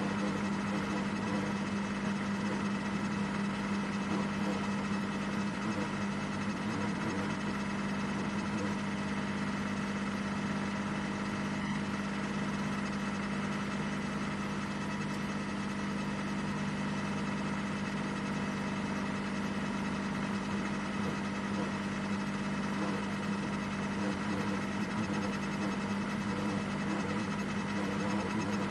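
Ferrari 499P's 3.0-litre twin-turbo V6 running at one steady, unchanging pitch, heard from inside the cockpit, with no revving or gear changes.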